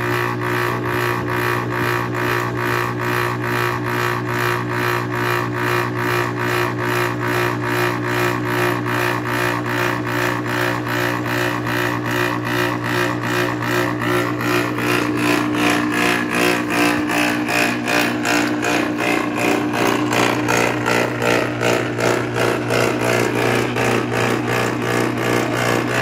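Rotorex rotary compressor of a 120-volt window air conditioner, run on 240 volts without its fan, running under overvoltage: a loud, steady electrical hum with a rapid, even pulsing. The hum grows a little louder about halfway through.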